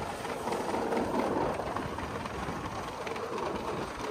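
Bulk feed truck's unloading auger running, conveying feed down the boom into a bulk feeder bin: a steady rushing noise.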